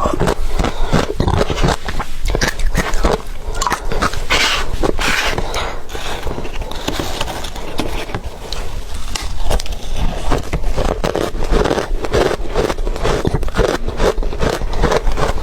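Close-miked crunching and chewing of ice: a rapid, irregular run of sharp cracks and scrapes as the ice is bitten and ground between the teeth, over a low rumble.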